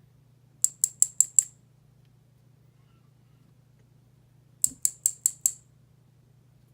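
Small metal lock parts and tools clicking against each other during disassembly of a pin-tumbler lock: two quick runs of five sharp ticks, one about a second in and one past the middle.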